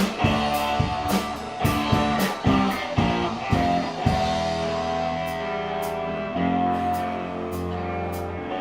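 Rock band playing live with electric guitar and drums: chords struck on a steady beat, about two a second, for the first half, then held, ringing chords.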